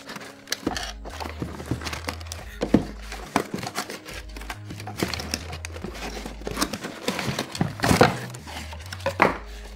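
Cardboard packaging inserts and flaps of a camera box being pulled apart and lifted out: irregular rustling, scraping and small knocks, with the loudest flurry about eight seconds in.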